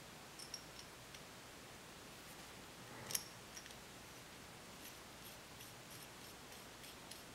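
Very faint, scattered small metallic clicks and ticks as the metal shank of a Badger 155 Anthem airbrush is fitted and threaded into the airbrush body, with one slightly louder click about three seconds in.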